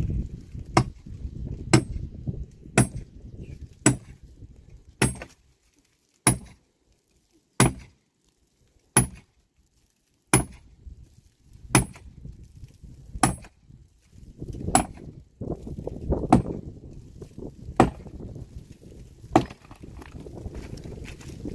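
Axe chopping into a dead, weathered tree trunk at its roots: about fifteen sharp strikes, one every second or so, slowing a little toward the end.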